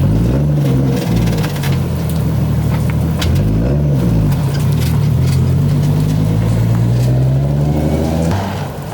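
A car engine running and revving: two quick blips near the start and about four seconds in, then held at a steady, slowly rising speed before it drops off near the end.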